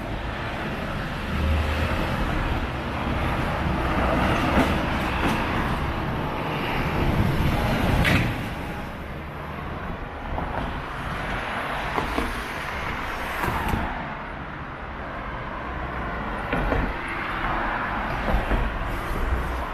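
Vehicles passing on a city street: a steady low rumble that swells and falls, with a couple of short sharp sounds.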